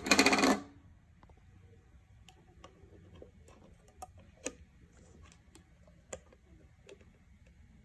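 A brief loud rush of noise at the start, then scattered light clicks and taps of a glass mason jar and metal lids being handled as the liquid is poured off the butter into a small glass.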